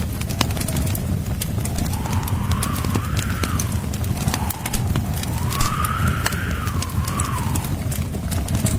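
Wood fire crackling with frequent sharp pops over a low steady rumble, while blizzard wind howls in a whistling tone that rises and falls every few seconds.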